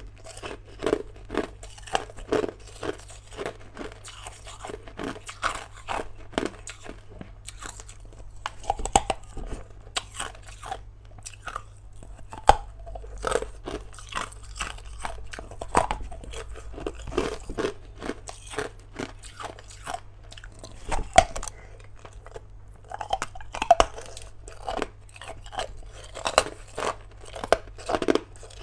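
A person biting and chewing hard ice: a dense, irregular run of sharp crunches and cracks, with a few louder snaps standing out.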